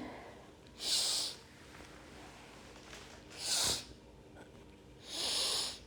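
Three short, hissy breaths through the nose, about two seconds apart, from a person holding a seated forward-fold yoga pose.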